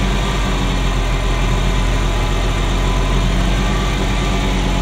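Ferrari Mondial V8 engine idling roughly and unevenly, misfiring on cylinders 5 to 8 from a timing fault that the owner suspects is a failed sensor.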